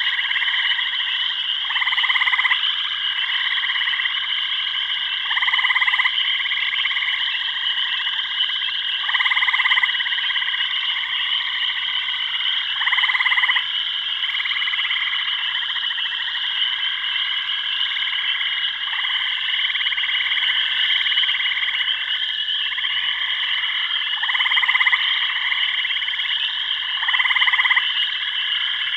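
Dense chorus of frogs in a tropical jungle soundscape: a steady high trilling, with a louder, lower call repeating about every three to four seconds.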